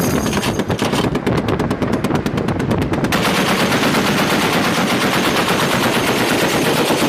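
Heavy machine gun mounted on a boat firing a sustained burst, about ten shots a second for the first three seconds. After that, the separate shots give way to an unbroken loud rush of noise.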